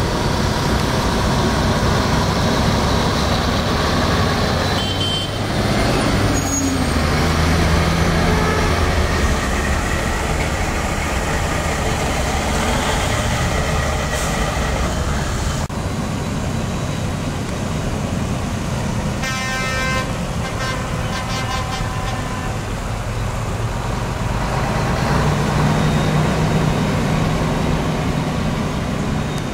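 Mack DM600 truck's diesel engine running as the tractor unit pulls away and drives past, its engine note rising for a couple of seconds near the start. Tyres hiss on the wet road under the engine.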